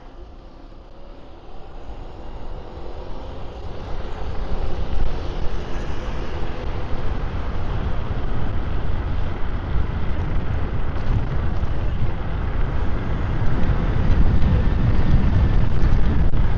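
Wind buffeting and road rumble on an electric scooter rider's shirt-clipped microphone, growing steadily louder as the scooter picks up speed.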